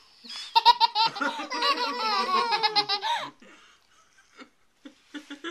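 A toddler's belly laugh: a run of quick, high-pitched bursts of laughter lasting about three seconds, then breaking off.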